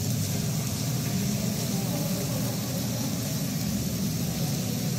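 Steady rushing noise of floodwater running across a flooded floor.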